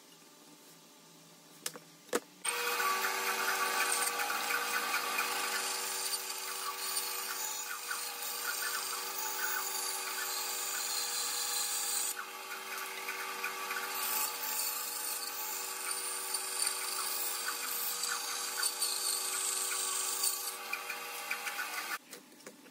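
Bandsaw running and cutting a curve through a softwood block: a steady motor hum under the hiss of the blade in the wood. It starts about two seconds in and cuts off suddenly near the end.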